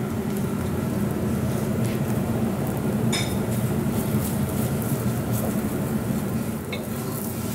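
Steady low hum of a commercial kitchen, its gas burners and ventilation running, with a light utensil clink about three seconds in.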